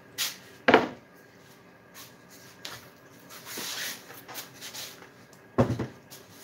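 Two heavy knocks on a wooden seat board, about a second in and again near the end, as hex dumbbells and tools are set down on it. Small clicks and handling noises fall between them.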